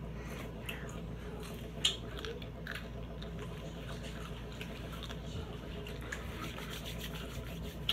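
A person biting and chewing a slice of hot cherry pepper: faint, irregular crunching clicks, with one louder crunch about two seconds in.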